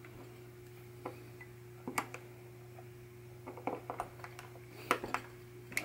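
Light clicks and taps of a screwdriver working on a pinball pop bumper's leaf switch during adjustment of the switch gap, with a cluster of quick taps after about three and a half seconds, over a steady low hum.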